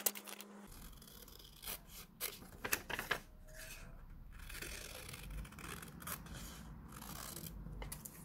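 Scissors cutting through paper pattern pieces: a few short snips, then quieter rustling as the paper is cut and handled.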